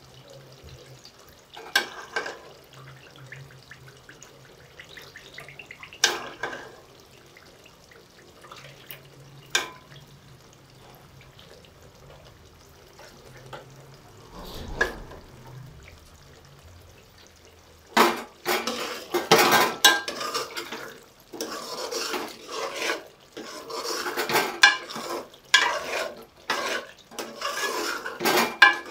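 A metal ladle clinks against a metal cooking pot a few times as ghee is scooped out of it into a bowl. About two thirds in, a busy run of scraping and clattering starts as a metal spoon works through the cooked pumpkin in the pot.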